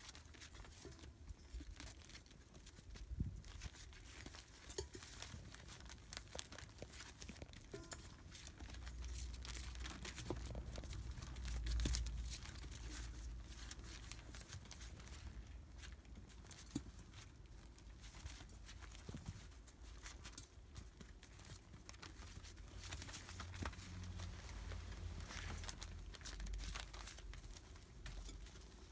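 Newspaper crinkling and rustling under the paws of month-old rough collie puppies moving about their pen, with many small clicks and taps. A low rumble swells up around the middle.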